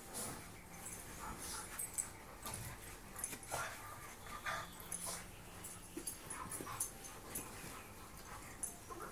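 Dogs play-wrestling: short whining cries and yips, with scuffling and pawing on the dog bed and carpet.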